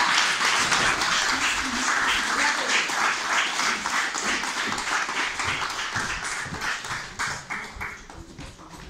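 An audience applauding, a dense run of many hands clapping that thins out and fades near the end.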